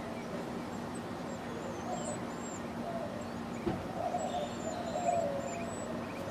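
Small birds calling with thin, high, wavering whistles and short trills, over a steady background hiss and low hum. A brief low bump comes partway through, and a louder burst of lower-pitched sound follows soon after.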